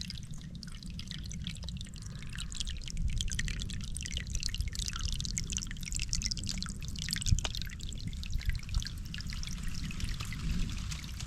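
Running water trickling and splashing, as from a small stream, with a low steady rumble underneath.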